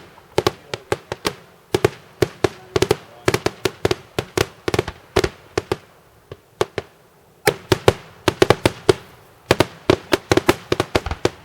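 Daytime fireworks bursting in quick, irregular runs of sharp bangs, several a second. There is a short lull a little past the middle, then a denser volley of bangs.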